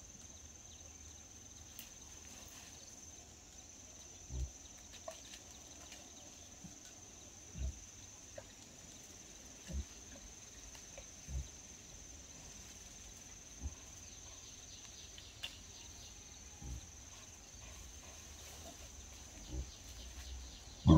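A series of short, dull low thuds, about one every two seconds, over a faint steady high-pitched hum.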